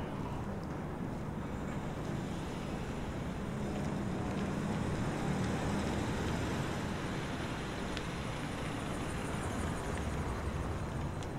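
A car's engine rumbling low and steady as the car drives slowly up the street, growing a little louder around the middle.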